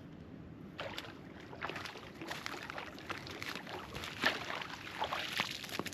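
Water splashing and sloshing in irregular bursts: a hooked brook trout thrashing at the surface as it is reeled in and landed.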